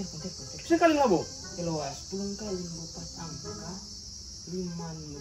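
Steady high-pitched chorus of crickets, with low voices talking quietly over it.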